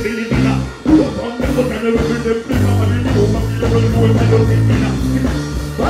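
Dancehall music played live through a loud festival sound system: a heavy bass line with the performer's voice on the microphone over it.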